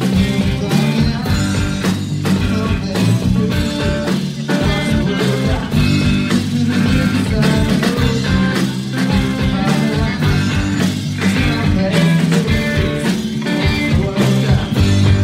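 A rock band playing live: electric guitars and a drum kit, with a lead singer.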